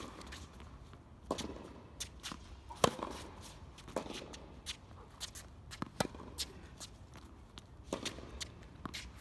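Tennis rally on a hard court: a run of sharp knocks from racket strings striking the ball and the ball bouncing on the court, the sharpest about three seconds in, with the players' shoes shuffling and stepping between shots.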